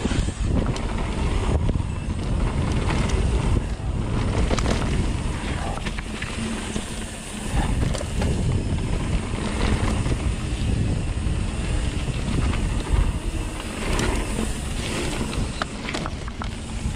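Wind buffeting the microphone over the steady rumble of mountain bike tyres rolling fast on a dirt trail, with scattered clicks and knocks throughout.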